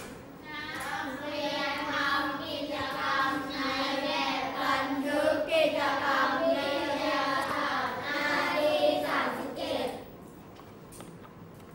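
A class of young schoolchildren reading aloud together in unison, in a sing-song chant, for about ten seconds before stopping.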